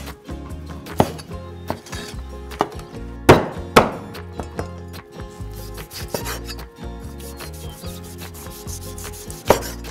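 Chinese cleaver chopping beef cartilage and tendon on a wooden cutting board: irregular sharp knocks of the blade through the pieces into the board, the loudest two about three and a half seconds in.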